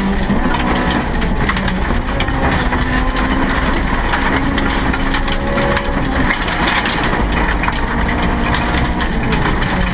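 Inside the cabin of a stripped EF Honda Civic hill-climb car with a B16B VTEC four-cylinder: the engine runs with its pitch rising and falling with the revs, under a loud, constant crackle and clatter of gravel pelting the underbody and the shell rattling.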